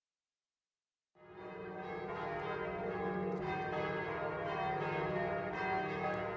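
Church bells ringing, a peal of several bells fading in about a second in.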